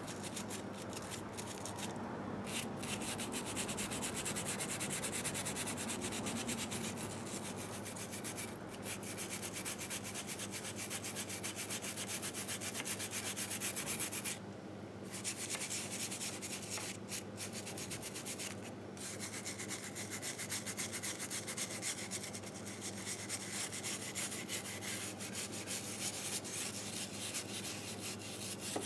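Rapid back-and-forth hand scrubbing on the aluminium crankcase of a 1958 Harley-Davidson Sportster engine, rubbing off built-up grime, with a few brief pauses.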